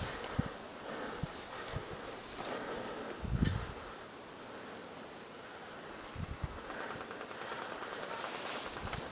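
Insects chirping outdoors: a steady, high, evenly pulsing trill. A soft low thump comes about three and a half seconds in.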